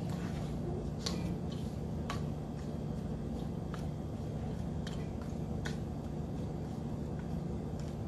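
Wooden spoon stirring cranberries through dry flour in a stainless steel mixing bowl, the spoon clicking lightly against the bowl about five times at uneven intervals.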